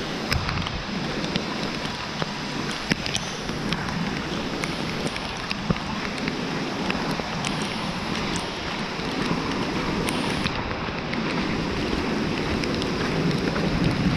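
Steady rain falling, with wind buffeting the microphone as a low rumble and scattered sharp ticks of single drops striking nearby.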